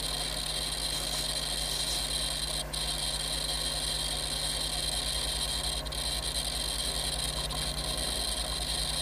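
Steady background hum and hiss with a faint high whine and no distinct events: electrical or equipment noise.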